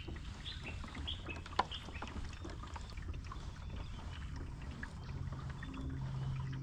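Water sounds of a Hobie Lynx pedal kayak moving along, with a steady low rumble and short bird chirps repeating throughout. A single sharp click comes about a second and a half in, and a low steady hum comes in near the end.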